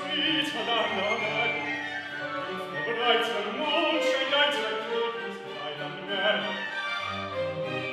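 Solo operatic singing in Baroque style, with sustained notes held with vibrato, over string accompaniment.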